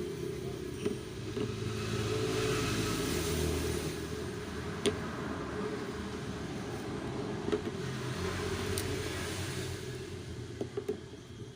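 Steady low rumble of motor-vehicle noise, swelling a few seconds in, with a few sharp clicks of pliers pressing a headlamp's plastic lens tight against its housing.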